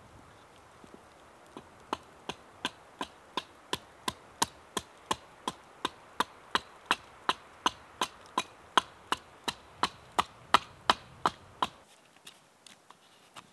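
Rhythmic chopping on wood: a steady run of sharp, evenly spaced knocks, about three a second, that stops near the end.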